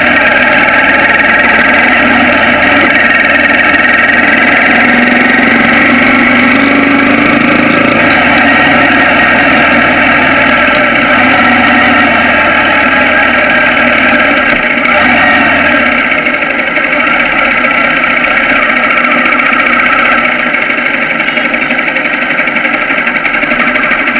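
Bajaj Pulsar 200NS motorcycle's single-cylinder four-stroke engine running steadily while riding, its note rising briefly about a quarter of the way through and easing off a little in the last third.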